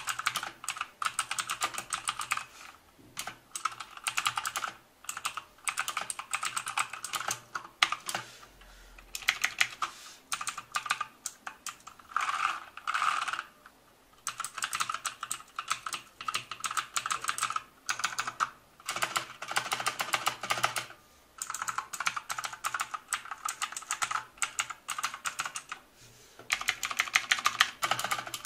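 Blue-switch mechanical keyboard, a Motospeed CK104 with clicky Outemu blue switches, being typed on fast in runs of a second or two with short pauses between them. Each keystroke gives a sharp click.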